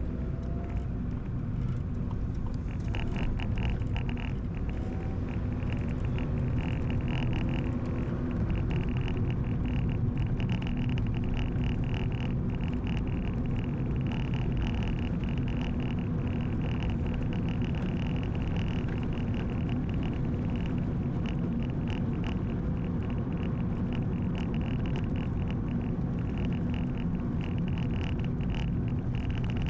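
Car driving slowly, heard from inside the cabin: a steady low engine and road rumble. From about three seconds in, a rapid, irregular crackling hiss sits above the rumble.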